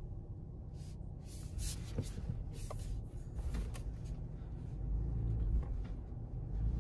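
Low rumble of a 2020 Toyota 4Runner's 4.0-litre V6 and drivetrain heard from inside the cabin as the SUV creeps off from a stop in four-wheel drive, swelling a little about five seconds in. Several brief knocks and rustles come in the first few seconds.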